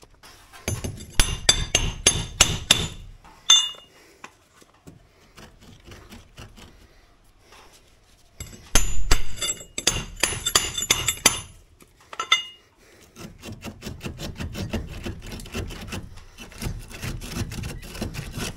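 Heavy metal hammer striking a steel brick chisel in three quick bouts of ringing, metal-on-metal blows, chipping out the mortar around a face brick to loosen it.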